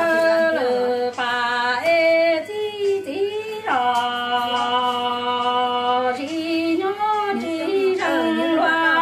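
A woman singing Hmong kwv txhiaj, unaccompanied: a single voice with sliding, ornamented phrases and one long held note from about four to six seconds in.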